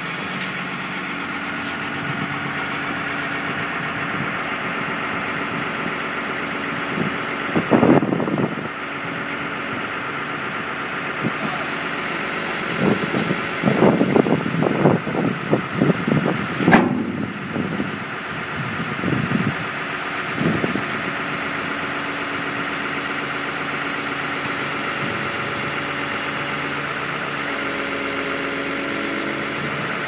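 Hyundai wheel loader's diesel engine idling steadily. Louder irregular sounds break in about 8 seconds in and again for several seconds past the middle, with one sharp knock among them.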